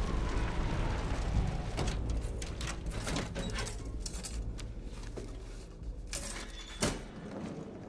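Low city traffic rumble fading away, then a run of small metallic clicks and jingles, the sharpest two near the end: keys and a door lock as a door is opened.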